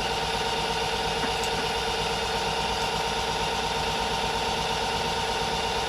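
Myford ML7 metal lathe running steadily: an even machine hum from the motor and drive, with several steady tones that do not change.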